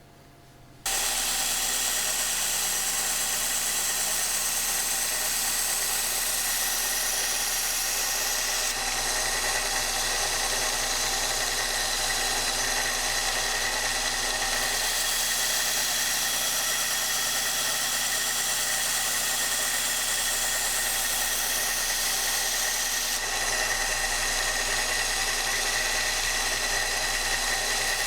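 Kalamazoo 1SM belt sander switched on about a second in and running steadily, a knife edge being sharpened on its 400-grit belt.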